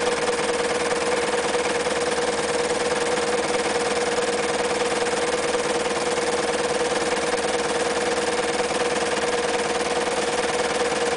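Reads Z233 electric sewing machine running steadily at sewing speed, its motor humming and the needle mechanism ticking rapidly and evenly as it stitches through denim.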